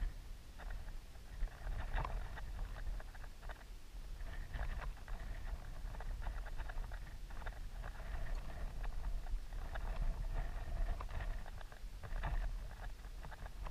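Wind buffeting the microphone as a steady low rumble, with irregular rustling and scraping crackles over it.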